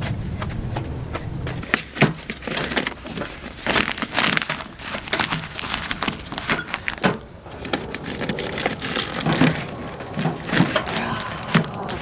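Padded and plastic mailing envelopes crinkling and rustling as they are pushed one after another through a metal mailbox slot, with irregular sharp crackles and taps.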